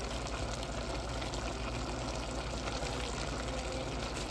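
Pork igado sizzling steadily in a pan on the stove, with a constant fine crackle.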